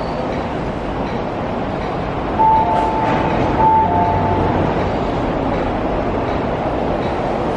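Steady rail rumble at a metro station platform. A short two-pitch electronic tone sounds twice, about a second apart, starting about two and a half seconds in.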